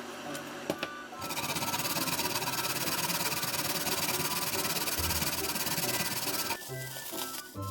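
A small electric motor, as in a kitchen appliance, switched on and running steadily for about five seconds, then switched off, with quiet background music.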